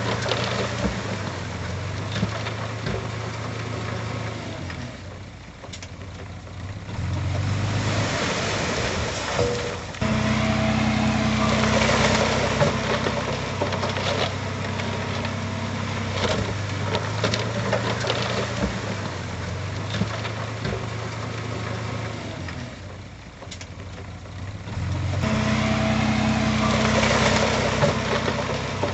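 Heavy earthmoving machine's diesel engine working under changing load. It eases off about five seconds in and again near the end, then swells back up each time with clatter and squealing over the engine note.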